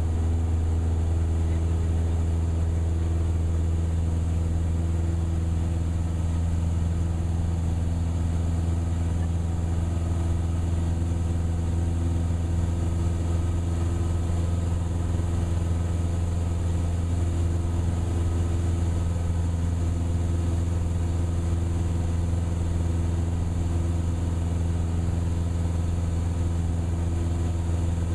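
Cessna 172's piston engine and propeller droning steadily in the cabin, an even low hum that holds one pitch throughout.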